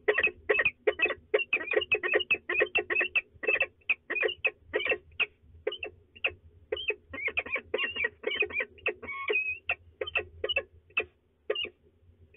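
Peregrine falcons calling: a fast series of short, sharp calls, about four a second at first, coming in sparser runs after a few seconds and stopping about a second before the end.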